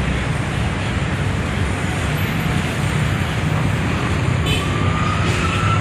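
Steady road traffic noise, with a faint rising whine near the end.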